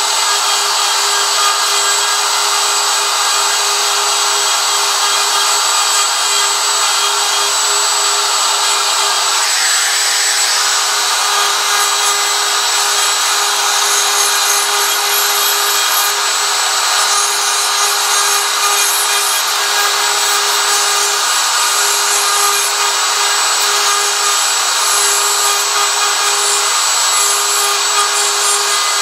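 DeWalt DW618 router running with a steady whine while its bit cuts away the background of a carved wooden sign, the cutting noise rising and falling as the router is moved through the wood.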